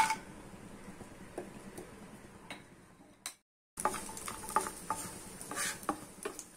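Cashew nuts frying in a little ghee in a pan and stirred with a wooden spatula: a faint sizzle with light ticks and scrapes. The sound drops out completely for a moment about halfway through.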